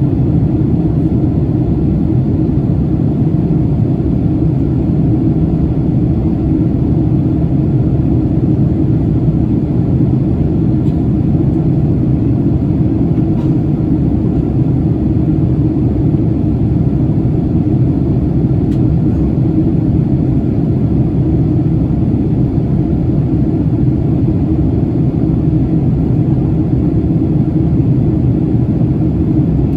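Jet airliner's engines and airflow making a steady low rumble, heard from inside the cabin.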